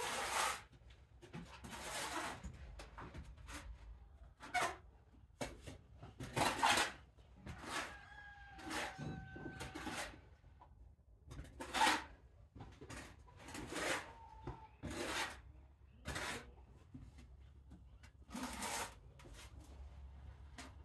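Young barn kittens stirring and shuffling in their bedding: a run of short, irregular scuffling rustles. A couple of faint, drawn-out calls come about eight to ten seconds in.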